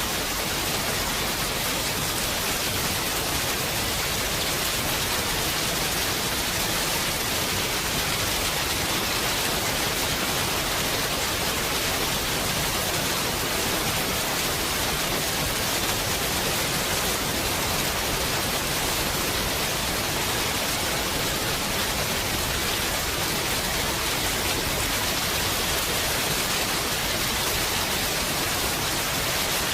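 Heavy rain falling steadily, an even, unbroken hiss with no thunder or other distinct strikes.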